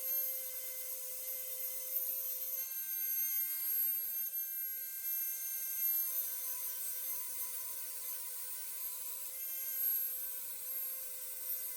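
Dremel rotary tool with a small sanding pad running at a steady high-pitched whine while sanding surface rust off steel bicycle parts.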